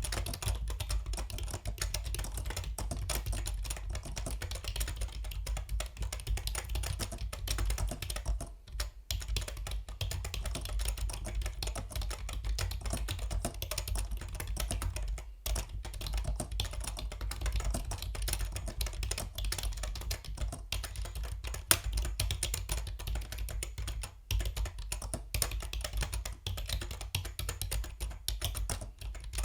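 Fast continuous typing on a Yunzii B307 mechanical keyboard, a dense stream of key clicks with a few short pauses, over a low steady hum.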